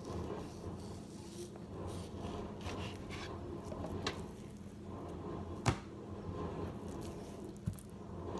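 Kitchen knife slicing through raw pork shoulder butt: soft, wet cutting and squishing of the meat, with a few sharp clicks, the loudest a little past halfway. A steady low hum runs underneath.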